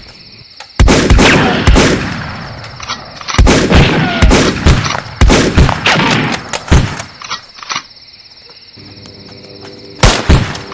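Several bursts of loud gunshots, rapid strikes each with a ringing tail, in three volleys over the first seven seconds and one more near the end. Crickets chirp steadily in the quieter gaps, and a low steady hum comes in near the end.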